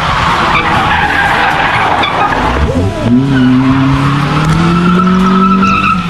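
Car engine revving with tyres skidding. The engine note dips about two and a half seconds in, then climbs slowly.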